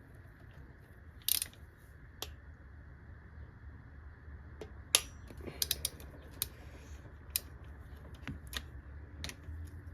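A socket wrench clicks sharply and irregularly as it tightens a cylinder head bolt to 40 newton-metres, with a few quick clicks together about halfway through.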